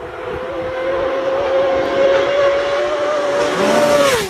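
Race motorcycle approaching flat out, its engine's steady high note growing louder, then passing close by with a sharp drop in pitch near the end.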